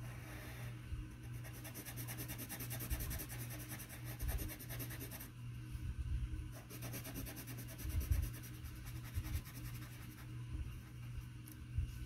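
Yellow coloured pencil scratching on paper with quick back-and-forth shading strokes, in two long stretches with a short pause between, over a steady low hum and a few soft knocks.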